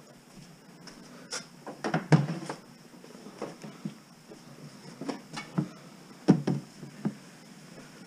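Plastic storage totes being picked up and handled, giving irregular hollow knocks and clunks, the loudest about two seconds in and just past six seconds.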